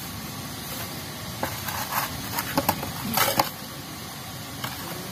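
Young rubber-tree leaves rustling and crumpling as they are pushed by hand into a small metal cooking pot, a few short handling noises with the loudest about three seconds in.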